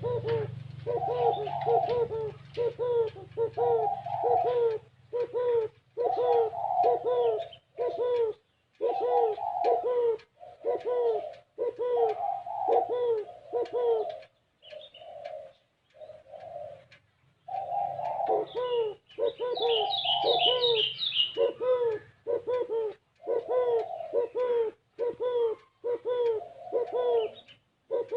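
Spotted dove cooing over and over in phrases of short, looping coo notes. This is the bowing coo that keepers call "gù kích bổi", used to provoke other doves. A quick run of high chirps from another small bird comes in about twenty seconds in.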